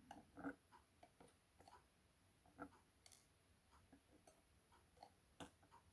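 Faint, scattered light clicks of the lock's small pins and springs being nudged into a row on a hard surface.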